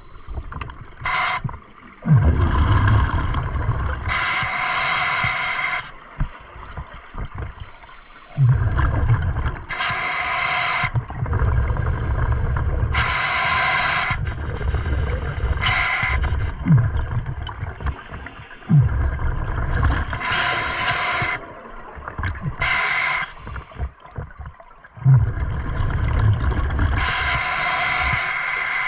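Scuba diver breathing through an open-circuit regulator underwater: the hiss of each inhalation alternates with a low rumbling rush of exhaled bubbles, repeating every several seconds.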